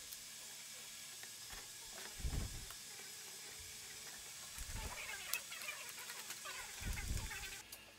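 Faint handling of a plywood jig: a few soft low thumps and light scraping of wood on wood over a steady hiss, which cuts off suddenly near the end.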